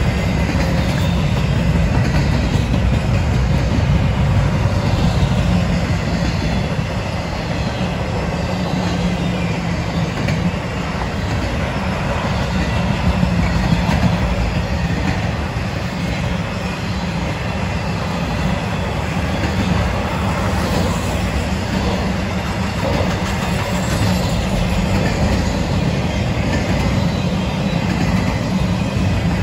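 CSX double-stack intermodal freight cars and trailer cars rolling past, steel wheels on rail making a steady, loud rumble.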